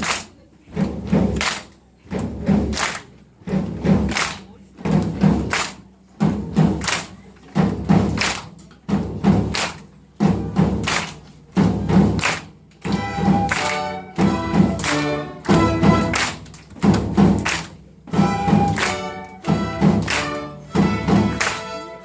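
A school orchestra playing a steady, repeating percussion rhythm of heavy thumps and strikes. Pitched instrument notes join over the beat about halfway through.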